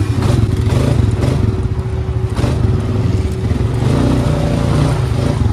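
ATV engine running under throttle while the four-wheeler is ridden through mud, heard from the rider's seat; the engine note rises and eases with the throttle.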